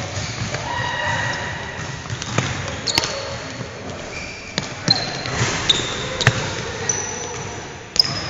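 Soccer ball being kicked and bouncing on a hardwood gym floor: a string of sharp thumps, about half a dozen, with short high squeaks of sneakers on the wood between them.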